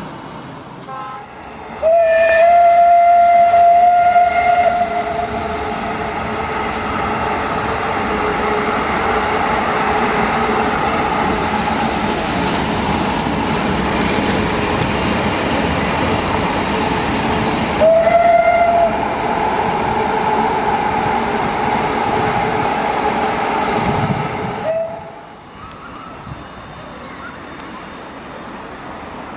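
Czech class 371/372 electric locomotive sounding its horn in a long blast of about three seconds as its train rolls past with a steady rumble of wheels on rail. A second, shorter horn blast comes a little past halfway, and a brief third just before the passing noise falls away.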